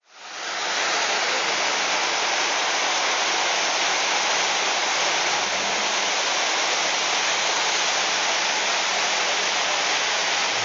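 Waterfall rushing steadily, fading in over the first second.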